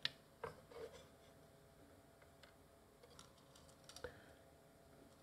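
Faint clicks and light taps of small tools being handled at a soldering bench: a few in the first second and another about four seconds in, over near-silent room tone.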